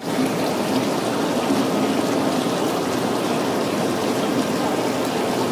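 Steady rushing and splashing of water running into a live-seafood tank holding king crabs.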